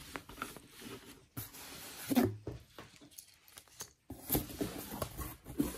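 Hands handling yarn skeins, paper leaflets and a cardboard box: scattered rustling and light knocks.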